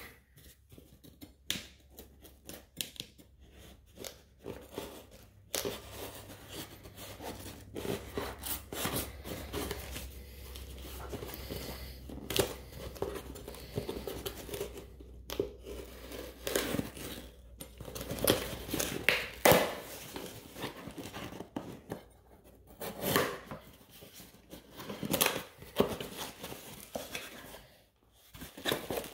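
Packing tape being slit with a knife and ripped off a small cardboard box, with scraping and rustling of the cardboard, in a run of short strokes; the loudest tearing comes in the second half.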